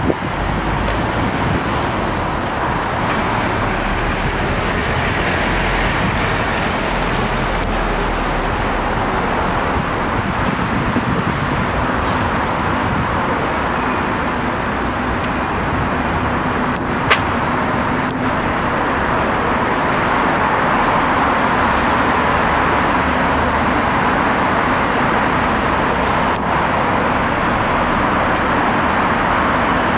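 Steady roar of road traffic, with one sharp click a little past halfway.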